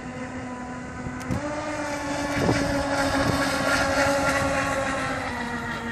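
Radio-controlled fast-electric race boat's motor whining at speed. The whine steps up in pitch about a second and a half in, grows louder through the middle, then eases off near the end. Wind buffets the microphone.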